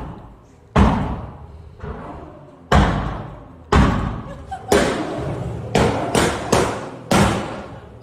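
Repeated heavy banging on a door: about eight loud thuds at uneven intervals, each ringing out briefly.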